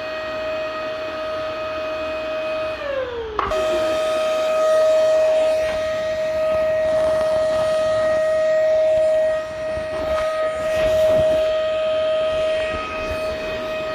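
Vacuum cleaner motor running, a steady high whine over rushing air. About three seconds in, the whine sags in pitch, then snaps straight back up.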